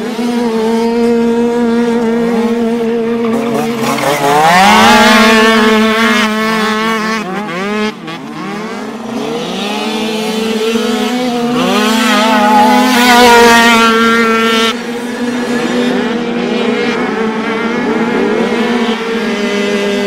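Several 49cc two-stroke dirt bike engines racing past at high revs, their pitch climbing and dropping as the riders accelerate and shift. The loudest passes come about four seconds in and again around twelve to fourteen seconds, over a steady high engine note from bikes farther off.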